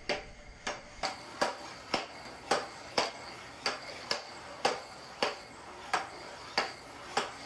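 3D-printed nylon (Diran) air hockey mallets striking a nylon puck back and forth across a wooden tabletop: sharp clacks about two a second in an even rally.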